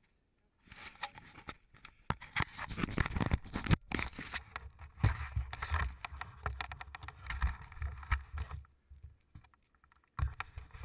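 Irregular knocks, scuffs and rattles of a body-worn action camera being jostled as the rider moves along a dirt forest trail, with low thuds among them. The noise starts after a short quiet, breaks off sharply just before four seconds in, goes quiet again for about a second near the end, then resumes.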